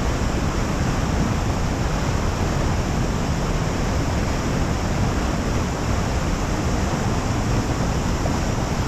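Steady roar of rushing water, heavy in the low end and even in level throughout.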